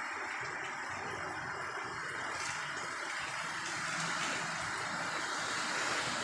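Steady downpour of rain during a storm, growing slightly louder about four seconds in.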